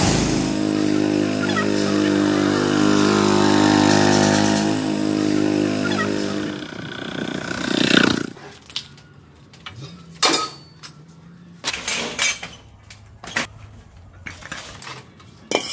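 Small single-cylinder pull-start petrol engine on a homemade motorcycle running at a steady idle, fading out after about six seconds. A short loud whoosh about eight seconds in, then scattered clanks and knocks of scrap metal parts being handled.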